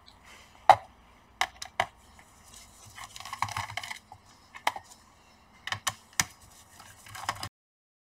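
Sharp, irregular clicks and taps of a screwdriver working the captive bottom-cover screws of a Dell Latitude 5590 laptop, with light scuffing of gloved hands on the cover between them. The screws are held by plastic stoppers and only unwind, they do not come out. The sound cuts off suddenly near the end.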